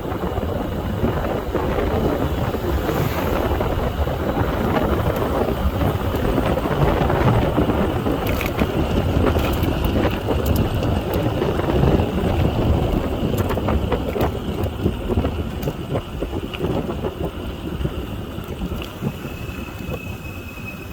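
Wind buffeting the microphone with steady rumble while riding a Nanrobot Lightning 2.0 electric scooter at speed on solid tyres. A faint steady high whine runs underneath and drops slightly in pitch near the end.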